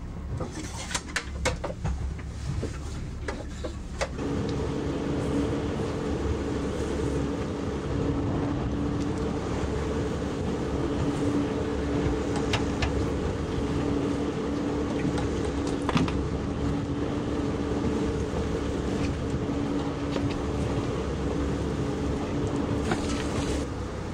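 A few knocks and clicks of handling on a boat deck, then about four seconds in the boat's engine is heard running steadily with an even hum.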